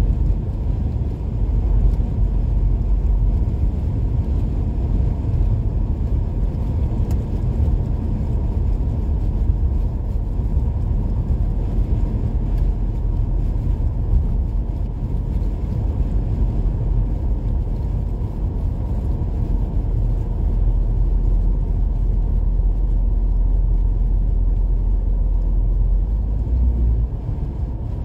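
Steady low rumble of a car in motion, heard from inside the cabin: engine and tyre noise on a snow-covered highway.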